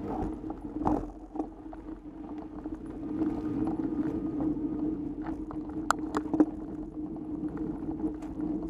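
Mountain bike rolling over a dirt trail, heard through a bike- or helmet-mounted action camera: a steady hum from the tyres and drivetrain, with sharp knocks and rattles as the bike hits bumps, the loudest a few clustered around six seconds in.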